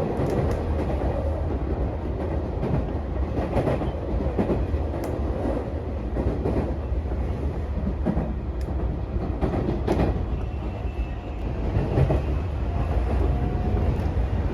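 Tokyu 3020 series electric train with Mitsubishi full-SiC VVVF drive, running at speed: a steady rumble of wheels on rail with scattered clicks from rail joints, the sharpest about ten seconds in. A faint thin whine rises out of the rumble near the end.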